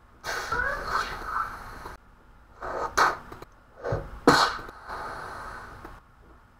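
Mouth-made fight sound effects: a wavering voiced cry lasting about two seconds, then sharp breathy bursts about a second apart, the last trailing off into a hiss.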